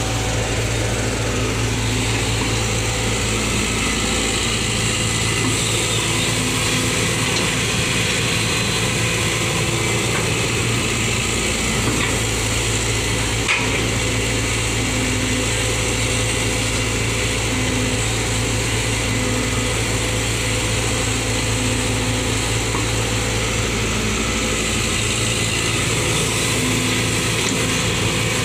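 Heavy diesel engine running steadily, with one faint knock about halfway through.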